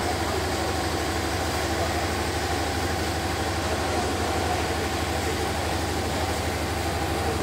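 An engine idling steadily with a low, even throb.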